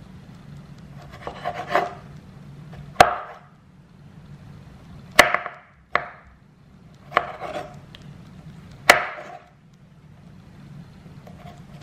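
Chef's knife slicing baby dill pickles lengthwise on a wooden cutting board: about six cuts, each a short crunch through the pickle ending in a sharp knock of the blade on the board.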